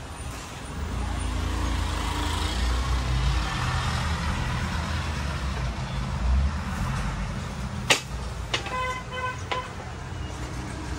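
Steady low rumble of road traffic with a vehicle horn honking a few short times about eight and a half to nine and a half seconds in. A sharp click sounds just before the honks.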